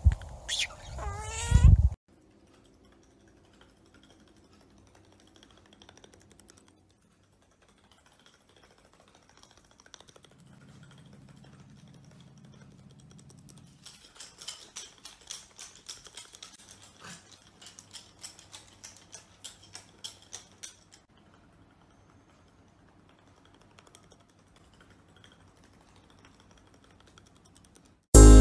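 A budgerigar chirps loudly for about two seconds, then the sound drops away to near quiet. From about 14 to 21 seconds small dogs' claws click in a quick, light patter on a hard wooden floor. Music starts abruptly at the very end.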